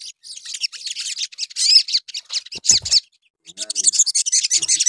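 Olive-backed sunbird (sogok ontong) singing fast, high-pitched chirps and twittering trills, pausing briefly about three seconds in before starting again.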